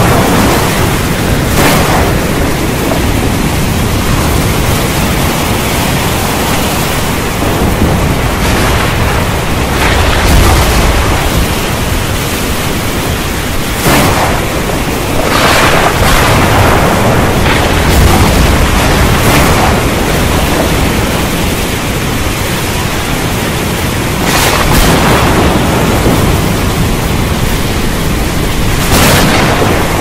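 Heavy rain falling steadily in a thunderstorm, with several sudden thunder cracks and low rolling thunder rumbles through it.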